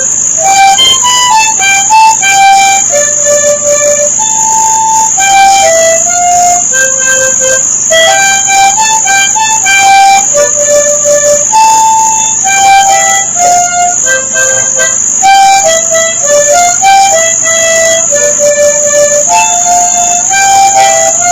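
Instrumental film score: a slow melody of held notes that step up and down, over a steady high-pitched hiss.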